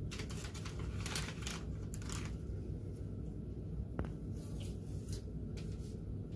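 Rustling of a paper-and-plastic medical dressing wrapper handled in gloved hands as a transparent film dressing is unwrapped, in several short crinkling bursts with a single sharp click about four seconds in, over a low steady hum.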